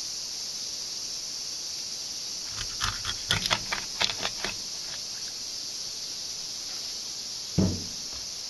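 Kitchen knife cutting the head off a frigate mackerel on a plastic cutting board: a run of crackling, crunching clicks as the blade goes through the bone behind the head, then a single thud near the end. A steady high hiss lies underneath.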